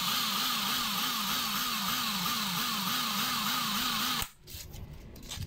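Electric drill running steadily, spinning a motorcycle engine valve against hand-held sandpaper to scour carbon off it, with a regular wobble about three times a second. It stops about four seconds in.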